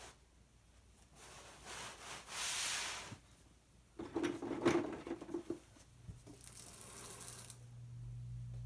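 Carpet piece dragged and rubbing across a concrete floor, then golf balls knocking together as a hand rummages in a plastic bucket. A low steady hum comes in about six seconds in.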